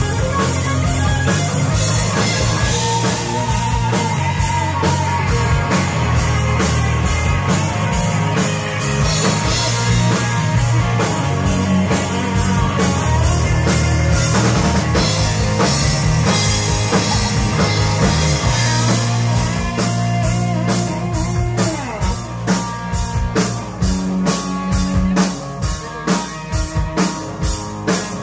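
Live rock band playing an instrumental passage on electric guitars, bass and drums. About two-thirds of the way in, the playing turns to choppy, evenly spaced hits.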